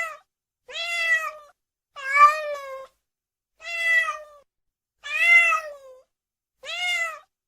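Domestic cat meowing repeatedly: about six separate meows, roughly one every second and a half, each rising and then falling in pitch.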